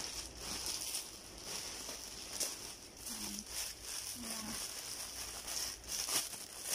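Clear plastic packaging bag crinkling as it is handled and opened, in irregular rustles, with two short low hums about three and four seconds in.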